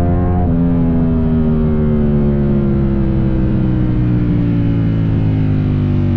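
Ducati Streetfighter V4S's V4 engine through an Arrow exhaust, slowing off the throttle in second gear: a steady drone that falls in pitch as the revs wind down under engine braking.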